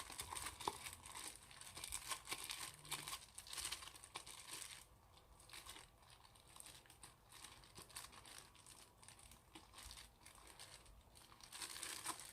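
Old slime worked by hand, giving a dense crinkling crackle with fine rapid pops. It is busiest in the first few seconds, thins out, then swells again near the end.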